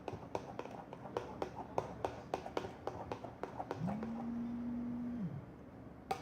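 Spoon stirring slime mixture of glue, foam and colouring in a pot, with irregular clicks and knocks of the spoon against the pot. About halfway through a steady low hum rises in, holds for about a second and a half, and falls away.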